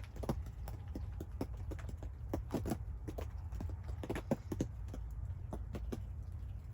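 Low steady rumble of wind on the microphone, with irregular soft taps and clicks several times a second.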